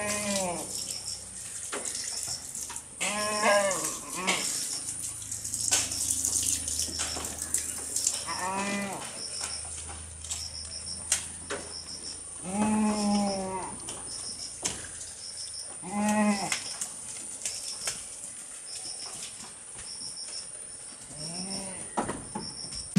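Livestock calling, about six drawn-out calls spaced a few seconds apart, over a steady high-pitched chirping drone.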